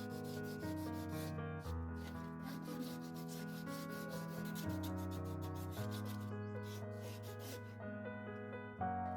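Hand sanding with wet emery paper on a rusted sheet-metal strip of a fridge body: rhythmic back-and-forth rasping strokes, stopping briefly near the end. Background music with slowly changing chords plays underneath.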